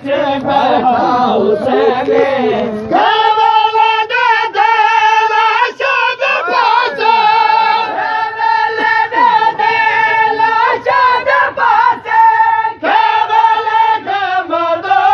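Voices singing a noha, a Shia lament, with no clear words. About three seconds in, a high note is held for most of the rest while other voices slide up and down around it.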